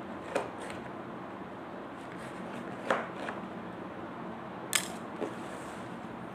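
Handling of an air pistol's cardboard box and plastic packaging: a handful of light knocks and clicks, the sharpest about three-quarters of the way in, over a steady hiss.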